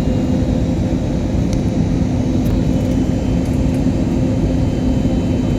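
Steady jet engine and airflow noise heard inside the cabin of an Airbus A320neo airliner, a deep even rush with a constant low hum running through it.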